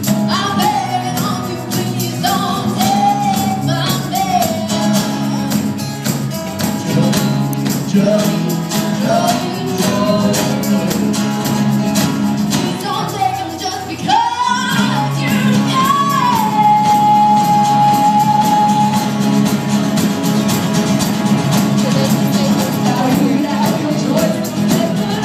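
Live rock band with several singers, guitars, keyboard and drums playing loudly. About two-thirds of the way through, one high sung note is held for a few seconds.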